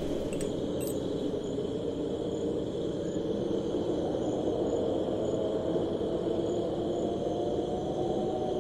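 Steady rushing background noise with a faint high steady tone, and a few light clinks about half a second in.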